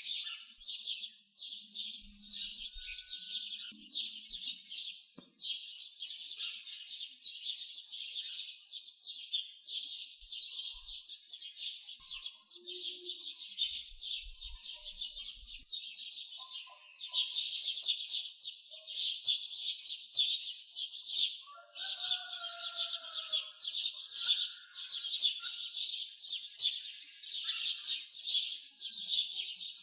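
A dense, continuous chorus of rapid, high-pitched chirping, a little louder in the second half, with a few fainter, lower sliding calls about three-quarters of the way through.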